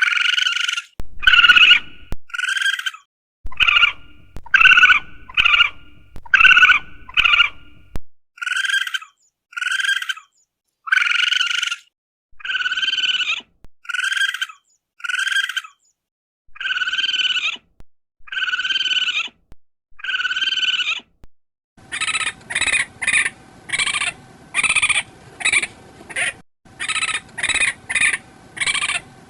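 Raccoon calling: a long series of short high-pitched calls, spaced about a second apart at first. In the last seven seconds they quicken to a rapid run of several calls a second.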